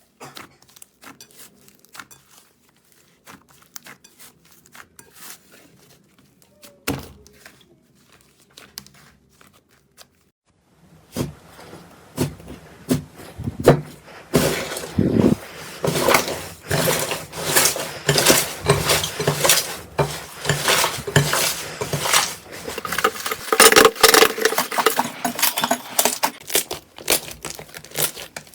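Slime being handled, with scattered small clicks and a single thunk at first. From about eleven seconds in it turns into a much louder, dense run of rapid crackling and clicking.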